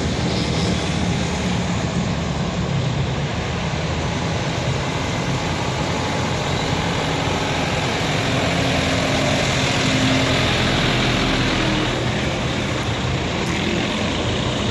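Tour bus engines and road traffic: a steady drone that grows a little louder about ten seconds in.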